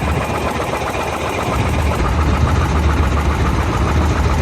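A small engine running steadily, its low hum growing louder about a second and a half in.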